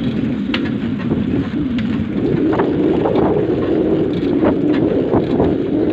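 Wind buffeting the microphone of a moving vehicle on the road, a steady low rush, with scattered short knocks.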